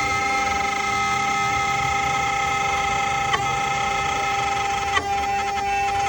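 CNC wood router carving: a steady whine from the spindle over the noise of the bit cutting wood, with two short clicks, one past the middle and one near the end.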